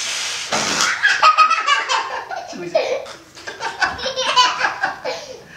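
People laughing, with hearty belly laughs and giggles in short, broken bursts that fade toward the end.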